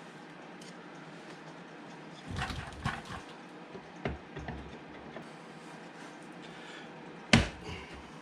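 Hands and tools working on a car door with the trim off, giving scattered clicks and knocks, a short cluster of them partway through and one sharp knock near the end, the loudest.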